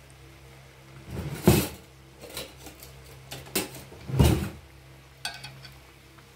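A metal fork and ladle clinking and scraping against a steel pot of frying ghee: about five bursts of knocks, the two loudest a little past one second and a little past four seconds in, over a low steady hum.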